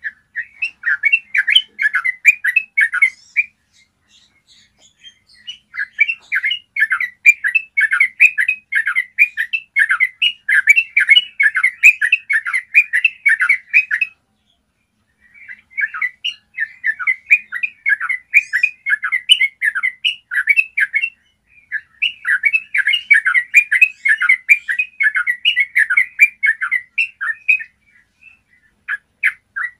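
Yellow-vented bulbul singing long runs of rapid, chattering notes, the rolling 'ropel' song, in four stretches of about five to eight seconds separated by short pauses.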